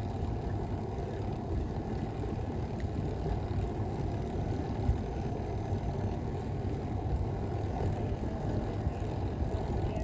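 Steady low rumble of wind buffeting the microphone and tyre noise from a bicycle rolling along an asphalt trail.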